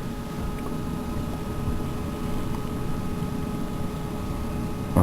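Strong wind in a snowstorm: a steady low rush of noise, with a faint steady hum of thin tones above it.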